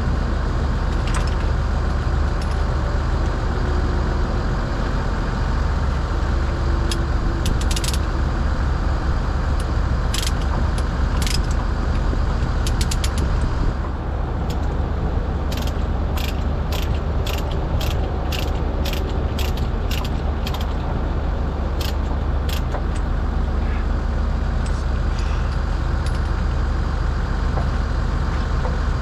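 Kobelco 210 excavator's diesel engine running steadily, with scattered sharp clicks and clinks, a quick run of them in the second half.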